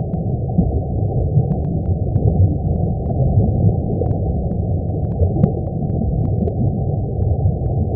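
Audio presented as the sound of the Sun, solar vibrations turned into sound: a steady, low rushing noise with nothing above the low range, flecked with faint ticks.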